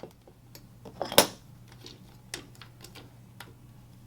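A few scattered light metallic clicks and taps from a punch and small hammer on the tripod's leg lock lever, with one sharper tap about a second in, as the groove pin is being set to be driven back in.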